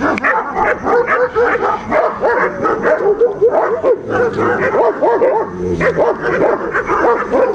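A dog whining and yipping in a rapid string of short calls that rise and fall in pitch, several a second, without a break.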